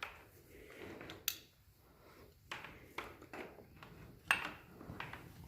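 A shop light being handled and hung back up: scattered light clicks and knocks, the sharpest about a second in and again past four seconds.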